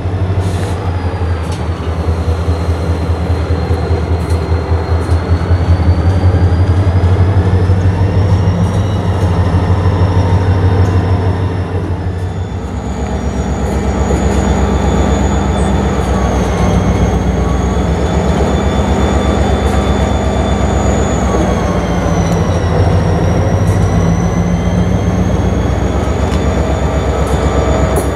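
EMD SD40-2 diesel locomotives running as the train rolls slowly by, a steady heavy low engine drone that shifts about twelve seconds in. Thin high squealing from the wheels slowly wavers in pitch above it.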